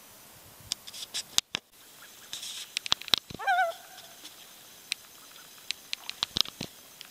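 Common loon giving one short quavering call about three seconds in, which wavers quickly in pitch and then settles into a brief steady note. Sharp clicks and knocks are scattered through the rest of the time.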